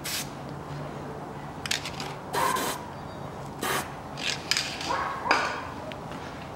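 Hand work on a car's front wheel hub and steering knuckle: several short, irregular scraping and clinking bursts from metal parts and tools being handled, over a steady low hum.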